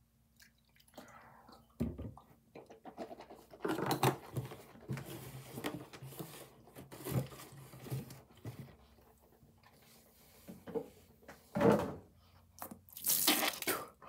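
Mouthwash poured from a plastic bottle into its cap, then swished and gargled around in the mouth in wet bursts. It ends with louder, splashy bursts near the end as it is spat out.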